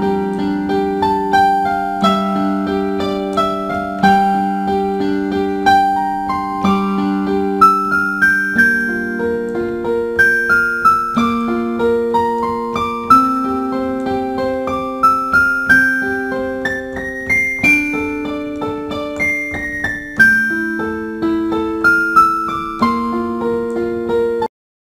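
Background keyboard music: a slow melody of held, chiming notes over soft chords. It cuts off suddenly near the end.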